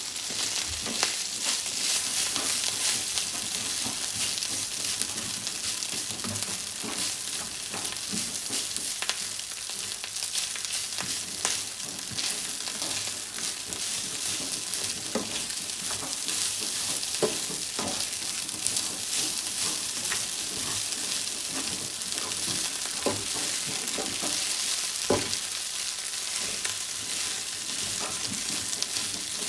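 Fried rice sizzling steadily in a hot pan as it is stir-fried, with a spatula knocking and scraping against the pan every few seconds.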